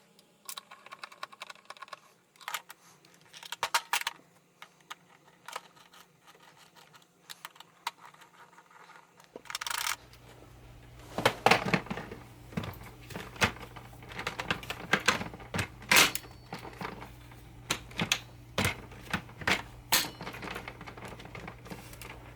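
Irregular clicks, taps and rattles of plastic upright-vacuum parts being handled and fitted back together by hand, growing busier and louder in the second half. A faint steady low hum joins about nine seconds in.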